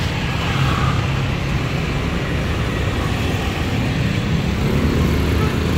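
Steady low rumble of a motor vehicle engine running.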